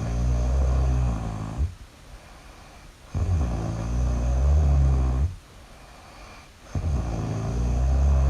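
Really loud snoring: three long, rattling snores about three and a half seconds apart, with quieter gaps between them.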